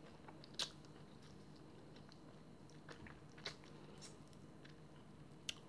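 Faint mouth sounds of a person eating a piece of soft fruit close to the microphone: quiet wet clicks and smacks of biting and chewing, the loudest about half a second in, again around three and a half seconds in, and once near the end.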